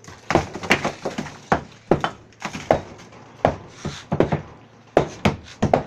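Repeated hammer blows on a plastered brick wall being knocked down: sharp knocks, roughly two a second and unevenly spaced, with brick and plaster breaking away.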